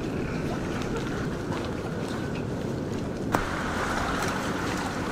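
Wind rumbling on the microphone with water lapping at the shoreline, and a single sharp knock a little over three seconds in.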